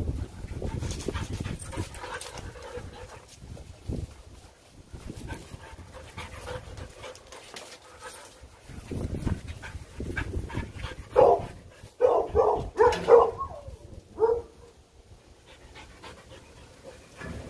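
Two dogs playing, with a quick run of short, loud barks between about eleven and fourteen seconds in.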